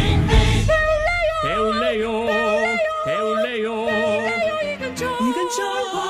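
Sung radio segment jingle: voices holding notes with a wavering vibrato over backing music, turning to shorter gliding notes near the end.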